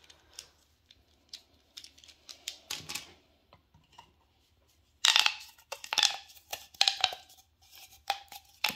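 Small plastic fidget toys being handled: scattered clicks and scratchy rustling, faint at first and much louder in the second half.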